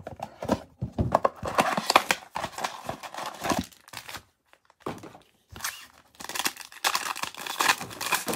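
Plastic shrink wrap and foil trading-card packs crinkling and tearing as a Panini Prizm blaster box is unwrapped and its packs pulled out and ripped open. The crackling comes in two stretches with a short pause about four seconds in.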